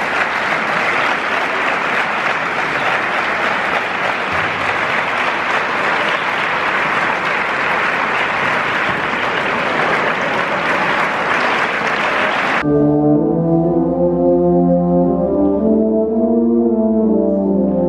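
Audience applauding in a large hall. About two-thirds of the way through it cuts off suddenly, and a concert band comes in playing slow, sustained brass chords that shift in pitch.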